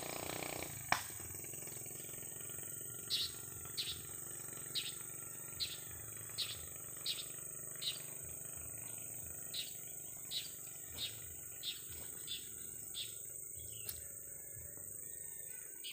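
Natural outdoor ambience: a bird gives short chirps about every two-thirds of a second over a steady, high-pitched insect drone. A single sharp click comes about a second in.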